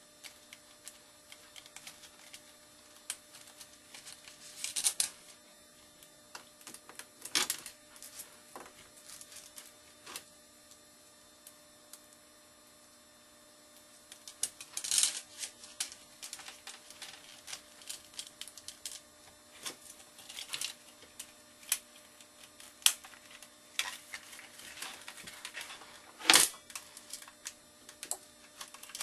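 Irregular clicks, knocks and short scrapes of small plastic blaster parts being handled and worked on during a Nerf DT3 pistol modification, over a faint steady hum. The sharpest knock comes a little past three-quarters of the way in.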